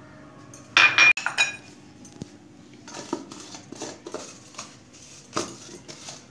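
Glass bowls clinking against a mixer-grinder jar as spice powders are tipped in, with one loud ringing clink about a second in. A few lighter knocks and taps follow as the jar is handled.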